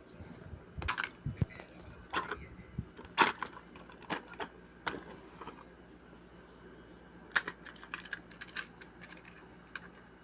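Irregular light clicks and taps of small plastic parts being handled: a Beyblade X Battle Pass and its packaging turned over in the hands. The loudest click comes about three seconds in, and a second cluster comes later.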